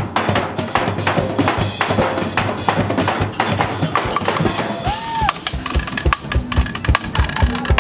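Live percussion group drumming a fast, dense rhythm on large bass drums and a drum kit, with wooden bar stools beaten with drumsticks; heavy low thumps fall evenly in the second half.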